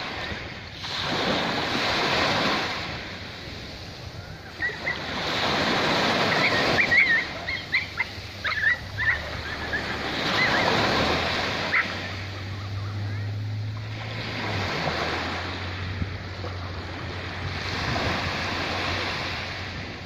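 Small waves breaking and washing up over sand, each wash swelling and fading every three to four seconds. A few short high chirps come through in the middle, and a low steady hum sets in during the second half.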